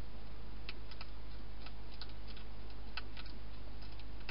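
A wild hedgehog crunching dry food, making sharp little clicks in small clusters every second or so, over a steady low hum.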